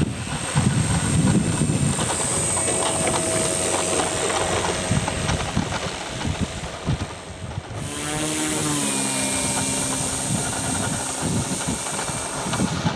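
Engine and propeller of a large radio-controlled Cessna 182 model running as it taxis, with a high steady whine. Irregular low rumbles of wind on the microphone come through in the first half. About eight seconds in the sound changes abruptly, and the engine's pitch falls for a second before holding steady.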